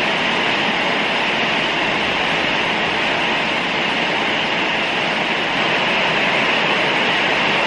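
Sound-art installation of many small speakers, each playing static at a different level, blending into one steady, loud hiss that sounds like a train coming.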